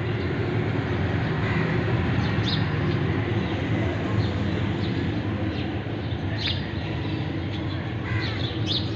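Steady low mechanical rumble, with brief bird chirps a few times over it.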